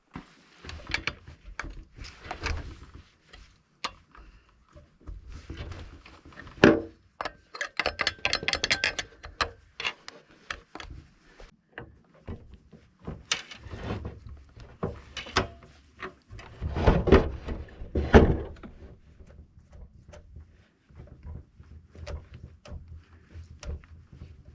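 Irregular knocks, clicks and handling noises of objects being moved about, with a fast rattling run about eight seconds in and two louder knocks around seventeen and eighteen seconds.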